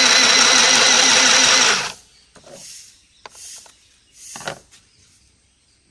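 Mini electric sewing machine running and stitching through fabric for about two seconds, then stopping abruptly: a short run of stitches to lock the thread at the end of a seam. A few soft knocks and rustles follow.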